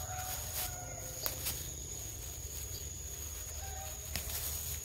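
Quiet rural outdoor ambience: a steady high-pitched insect drone over a low rumble, with a few faint distant animal calls and two light clicks.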